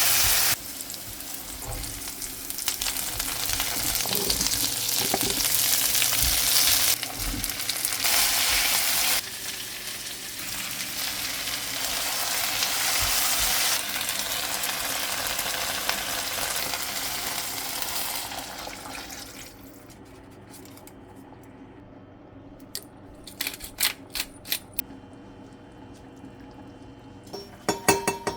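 Vegetables cooking in a pot of vegetable soup, a steady sizzling hiss that jumps in level several times. It fades out about two-thirds of the way through, leaving a few light clicks and knocks near the end.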